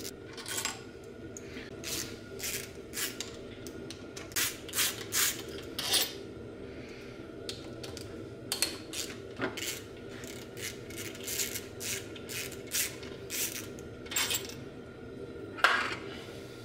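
Irregular metallic clicks and clinks of a hand ratchet and loose Torx bolts as the throttle body is unbolted from the intake plenum. A sharper clack comes near the end.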